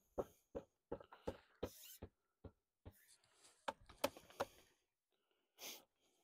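Light, irregular knocks and clicks, a dozen or so short ones, from a square wooden post being worked over by hand in its dug hole, with a short sniff about five and a half seconds in.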